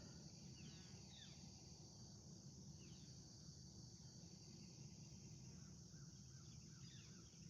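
Faint outdoor ambience: a steady, high insect drone like crickets, with a few soft bird chirps, some just after the start and more near the end.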